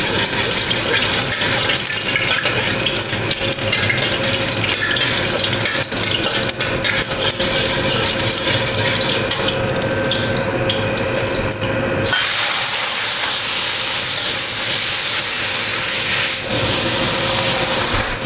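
Garlic sizzling in hot oil in a steel wok, with a metal spatula scraping and clicking against the pan. About twelve seconds in, the boiled bamboo shoots go in and the sizzle jumps suddenly to a louder, even hiss for about four seconds.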